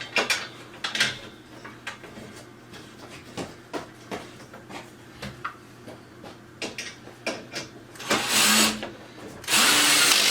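Parts of a particleboard desk frame being handled during assembly: scattered light knocks and clicks, then near the end two loud grinding bursts of about a second each.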